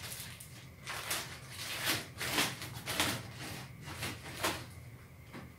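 Clear plastic bag crinkling and rustling in a series of short bursts as a prismatic lithium iron phosphate cell is handled and slid out of it, loudest about two to three seconds in.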